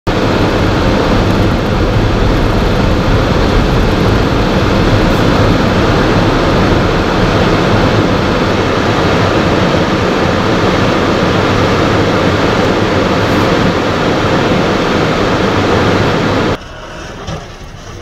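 Strong storm wind blowing across the microphone, a loud, steady rush and rumble that cuts off suddenly near the end.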